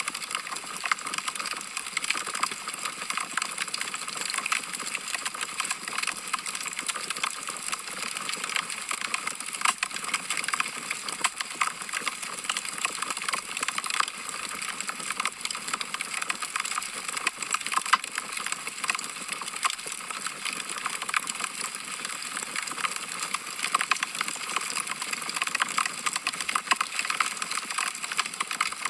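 Wood logs burning in a fireplace, crackling steadily: a dense run of quick pops and snaps over a soft hiss.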